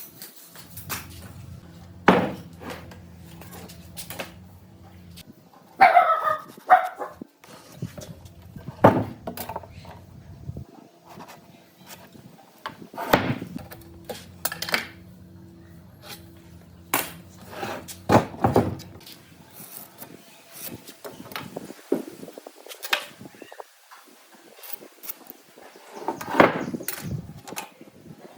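Workshop clatter: irregular knocks and clunks, with a low steady hum that starts and stops several times. A short, higher, wavering call, like a yelp or bark, sounds once about six seconds in.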